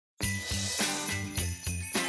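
Christmas-style music with jingling sleigh bells shaken on a quick, even beat of about three to four strokes a second over sustained notes, starting abruptly.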